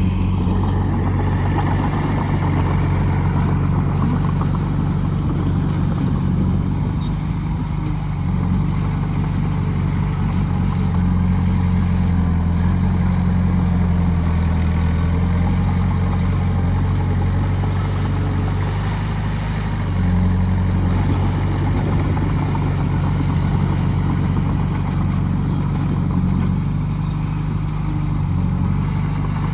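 Diesel engine of earthmoving equipment running steadily, its pitch and load shifting slightly now and then as the machine works.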